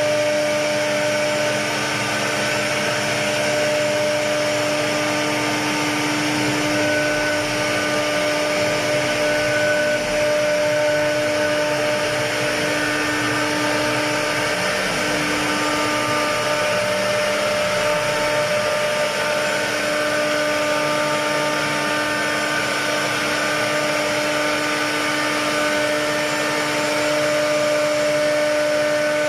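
CNC router spindle running steadily under load with a high, constant whine over a continuous hiss, routing a pattern into a wooden door panel.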